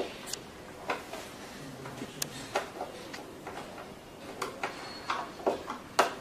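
Irregular clicks and knocks of a beauty machine's handpiece parts and connectors being handled and fitted together, about a dozen short taps with the sharpest near the end.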